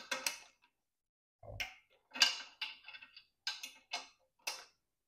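A quarter-inch drive click torque wrench and its socket on a propeller hub's bolts give about six short, sharp metallic clicks and clinks, irregularly spaced, as the wrench is set on each bolt in turn and clicks off at its set torque.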